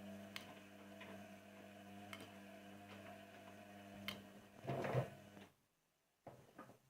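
Indesit washing machine running a slow wash: a steady motor hum with a few sharp clicks as the drum turns, and a louder rushing noise near the end before the sound cuts off abruptly.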